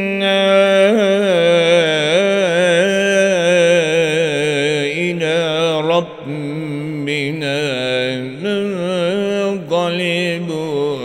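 A man chanting Quran recitation in Arabic, melodic tajwid style, drawing the words out in long ornamented held notes. He pauses briefly for breath about six seconds in.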